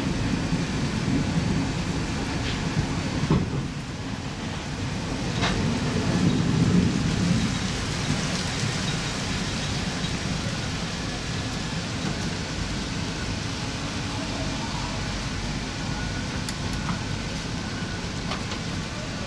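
Running noise of a passenger train heard from on board: a steady low rumble under a haze of noise, with a few faint clicks and a brief swell about six seconds in.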